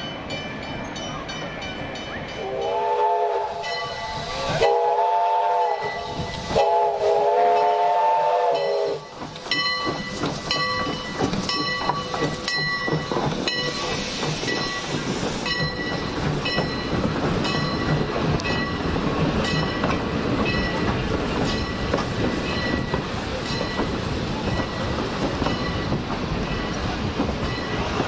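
Train horn sounding three chord blasts, the last the longest, then the train running past with a steady rumble and clatter of wheels on the rails.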